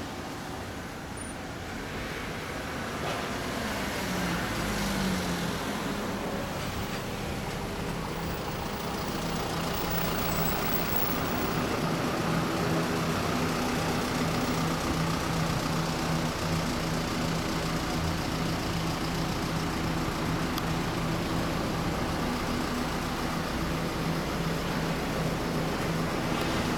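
Honda CB1300 Super Bol d'Or's inline-four engine idling through a TSR hand-bent titanium full exhaust. It grows louder over the first few seconds, rises briefly in pitch about four seconds in, then holds a steady idle.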